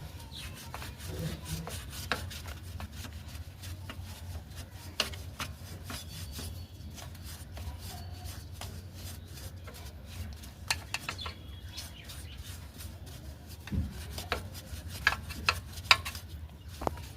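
Hand work on a scooter's rear drum brake parts: irregular rubbing and scraping with scattered sharp clicks and taps over a low steady hum.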